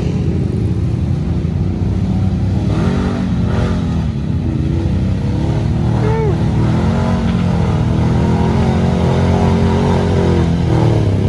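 ATV engine running under load as the quad climbs a rutted dirt hill, growing slowly louder as it approaches.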